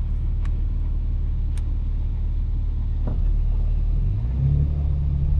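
BMW G82 M4's twin-turbo inline-six running at low revs while driving, its note rising from about four seconds in as the car accelerates.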